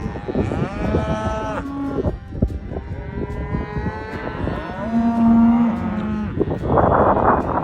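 A herd of beef cattle mooing and bawling, many calls overlapping, some long and low, with one louder, rougher bawl near the end.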